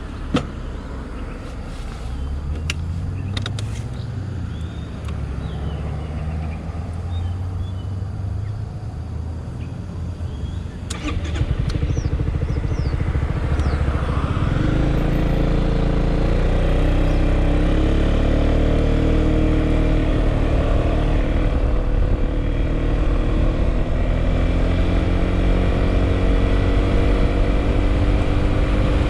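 Yamaha XMAX scooter's single-cylinder engine and exhaust, ridden with the microphone on board. It idles for about eleven seconds with a few sharp clicks. Then it pulls away, the engine note rising, and settles into a steady run at speed.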